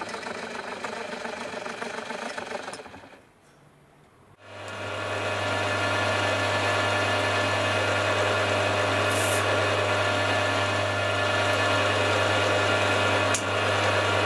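Milling machine running at a slowed spindle speed while an 8 mm reamer cuts through a hole in an aluminium block. A fainter machining noise for about three seconds, then a brief lull, then a loud, steady motor hum from about four seconds in.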